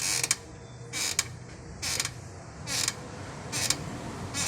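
Short creaking clicks from a Renault Sandero's front suspension, repeating about once a second as the steering is worked back and forth with the car standing on its wheels. The mechanic traces the noise to the right lower control arm, which may be loose, and not to the steering rack.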